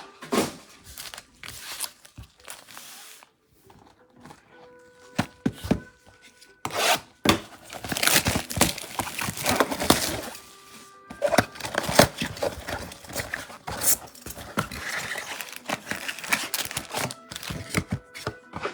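Trading-card mega box and its foil card-pack wrappers being torn open, with irregular sharp rips and crinkling rustles.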